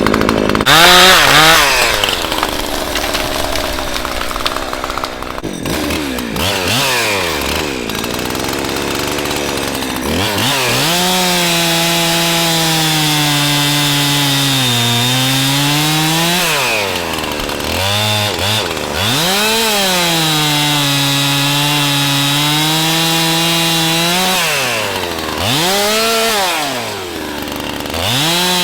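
Husqvarna 372XP-clone two-stroke chainsaw revved to full throttle several times, its pitch sagging as it works through cuts and falling back to idle between them.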